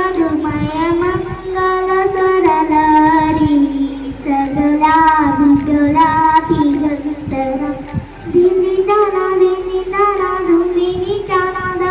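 A young girl singing a song solo into a handheld microphone, holding long, drawn-out notes phrase after phrase.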